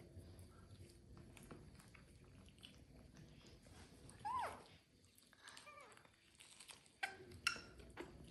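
A baby macaque gives a short squeaking call about four seconds in, its pitch rising then falling, with a couple of fainter squeaks a second or so later. Faint small clicks and rustles come in between.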